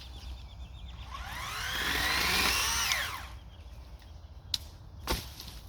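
Electric chainsaw motor speeding up and winding back down in one short burst, its whine rising for about two seconds and then falling quickly. Two sharp clicks follow near the end.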